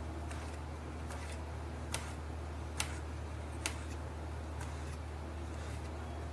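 Kitchen knife slicing through a tomato, the blade tapping sharply on a stone countertop at each cut, roughly once a second, over a steady low hum.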